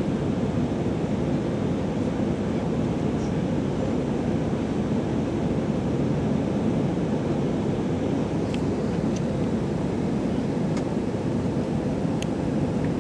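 Steady cabin noise of an Airbus A319 climbing after takeoff: a low, even rumble of the jet engines and rushing air. A few faint clicks come near the end.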